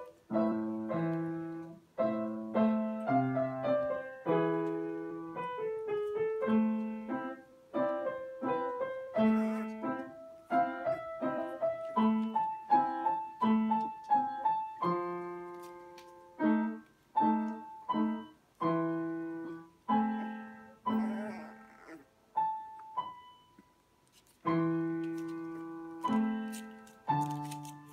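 Solo piano music: a slow melody of struck notes, each ringing and fading away, with a brief lull about two-thirds of the way through.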